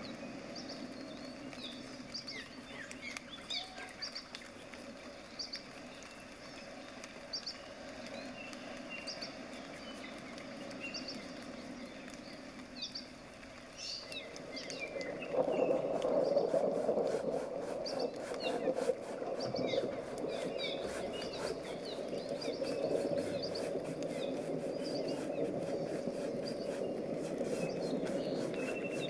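Small birds chirping repeatedly in the background. About halfway through, a louder, steady, scratchy rustle starts: a flat bristle brush mixing and spreading acrylic paint.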